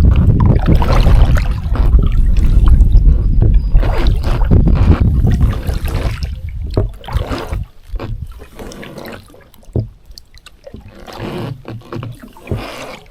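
Kayak paddling: water splashing and dripping around the paddle and hull. It is loud and rumbling for about the first six seconds, then quieter, with scattered splashes.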